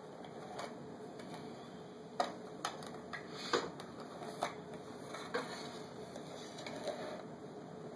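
Small toy bulldozer being pushed through crumbly dig-kit dirt in a plastic bin: soft scraping with scattered sharp clicks and taps of chunks and plastic knocking together.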